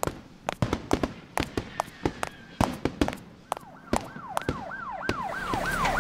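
Fireworks going off as a quick series of sharp bangs and cracks. About three and a half seconds in, a police siren starts, a fast repeating falling wail of about three sweeps a second.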